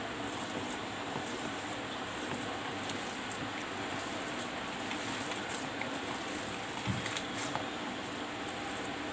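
Hands squishing and kneading a soft mash of boiled potato and soaked sago pearls in a plastic bowl, over a steady hiss, with a few soft clicks in the second half.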